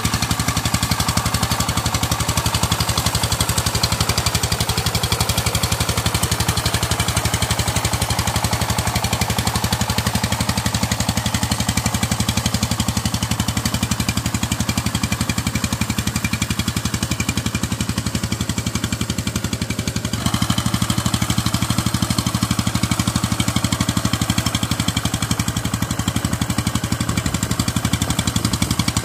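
Single-cylinder diesel engine of a two-wheel power tiller chugging steadily in a fast, even beat while its rotary tiller churns wet paddy-field mud. The sound shifts abruptly about twenty seconds in.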